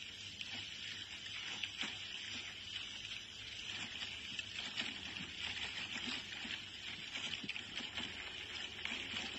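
A steady high-pitched buzzing chorus of insects from the trees and scrub, under a low rumble of wind and movement from riding along the path.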